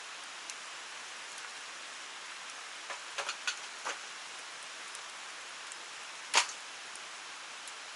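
Steady rushing of a clear stream and small waterfall. A few light clicks come a few seconds in, and one sharper knock about six seconds in.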